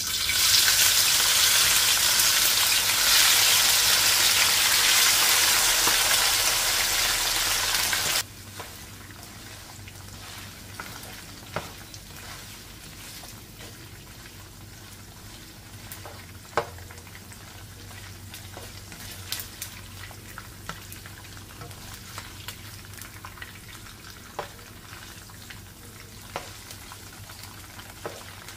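Gizzards hitting hot oil in a nonstick wok and sizzling loudly, the sizzle cutting off suddenly about eight seconds in. A quieter steady frying sizzle follows, with occasional sharp clicks of a spatula against the pan as they are stirred.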